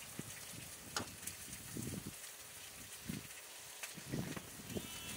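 Quiet open-air background with a few faint, scattered knocks and rustles, and a sheep bleating once, starting right at the end.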